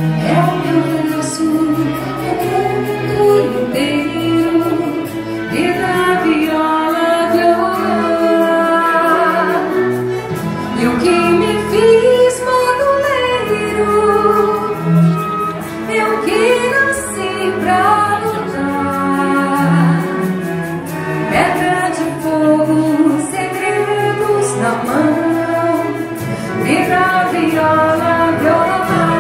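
A woman singing a song through a microphone, accompanied by a symphony orchestra of strings, woodwinds and brass.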